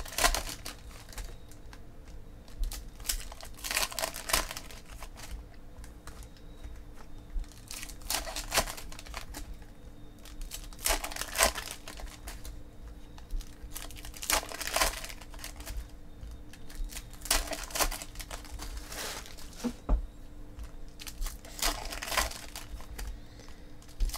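Foil trading-card pack wrappers crinkling and tearing open as cards are pulled out and handled, in irregular short bursts every second or few.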